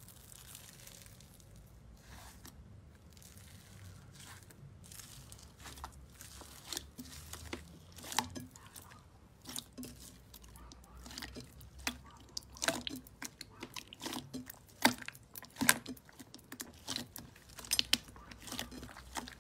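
Slime squeezed and pressed by hand in a glass bowl, making soft crackling at first and then many sharp, crunchy clicks and pops from about eight seconds in.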